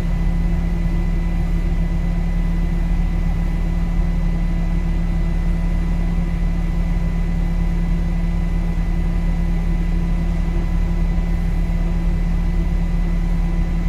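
Portable HEPA air filtration unit's blower fan running steadily: a low hum with a faint, steady high whine over it.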